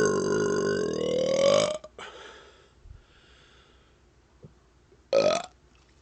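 A man's long burp from chugged Dr Pepper. Its pitch dips and then climbs before it cuts off sharply about two seconds in. A short, rising burp follows near the end.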